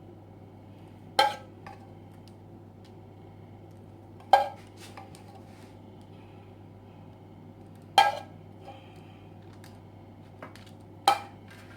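Metal spoon clinking against cookware four times, a few seconds apart, each a sharp clink with a short ring, as hot candy mixture is scooped out in half-tablespoon portions. A low steady hum runs underneath.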